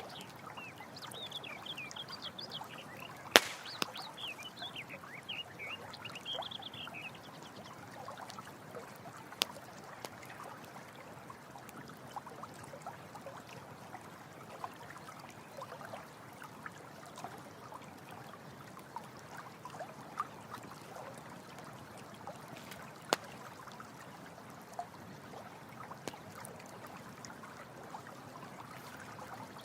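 Running water trickling steadily over stones, with sharp pops from a crackling campfire, the loudest about three seconds in and others scattered later. A series of short, high chirping calls sounds over the first several seconds and again at the very end.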